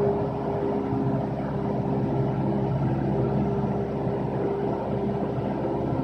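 A Cessna light airplane's piston engine and propeller droning steadily, heard from inside the cockpit.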